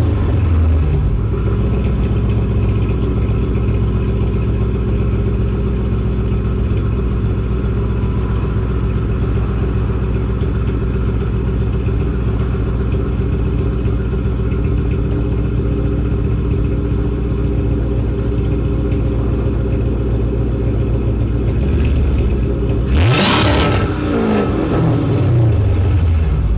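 Car engine idling loudly and steadily through its exhaust, with one quick rev that rises and falls near the end.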